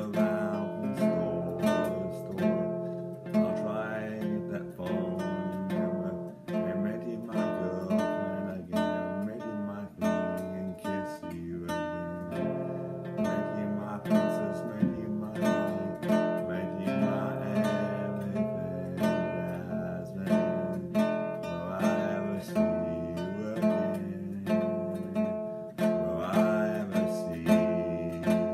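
Acoustic guitar strummed in a steady rhythm, a repeating pattern of chords.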